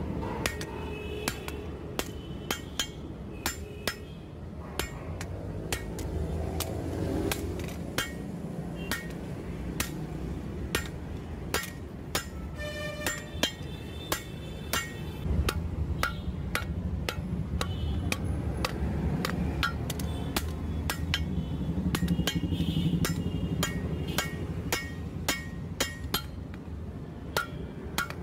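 Hammer blows on red-hot leaf-spring steel on an anvil, at an uneven pace of about two a second, many with a short metallic ring.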